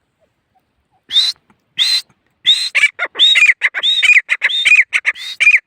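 Grey francolin (teetar) calling loudly: two single shrill notes about a second in, then a quickening run of repeated two-part notes, each rising high and then dropping lower.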